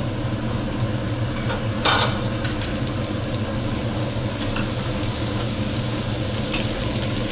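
Sliced onions and whole spices frying in hot oil in a kadai, with a steady crackling sizzle. About two seconds in there is a short, loud burst of sizzling as raw potato chunks go into the oil. A steady low hum runs underneath.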